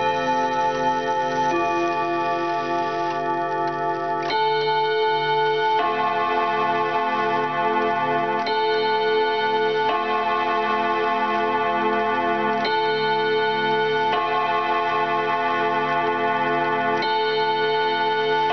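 Antique ODO chime wall clock's hammers striking its tuned chime rods, playing a chime tune: clear ringing notes that overlap and sustain, with fresh groups of notes struck every one and a half to three seconds.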